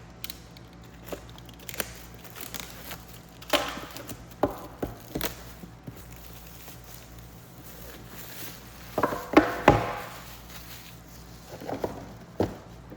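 Scattered knocks and short clatters of objects being handled and set down on a hard surface, the loudest a pair of knocks about nine and a half seconds in.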